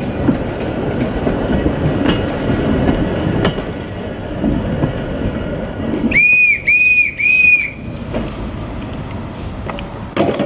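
Narrow-gauge wooden goods wagons rolling slowly past close by, their wheels clattering and knocking over the rail joints. About six seconds in, three short high-pitched tones sound in quick succession.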